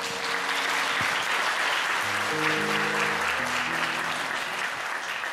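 Audience applauding steadily, over quiet background music with a few held notes.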